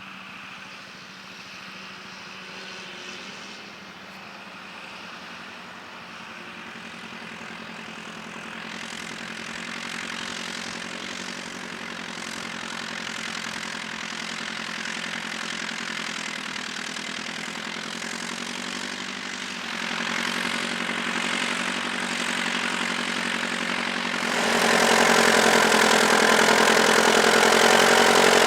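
Tractor engine running at steady speed, growing steadily louder as it comes closer, with a sudden step up in loudness near the end.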